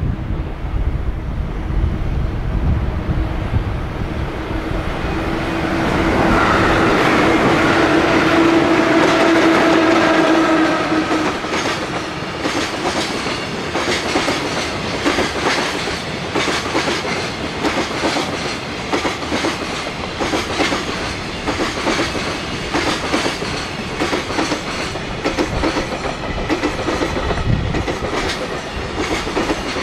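Freight train passing: a low rumble, then the locomotive's horn held for about five seconds, then a rapid clickety-clack of wagon wheels over rail joints as the long train of wagons rolls by.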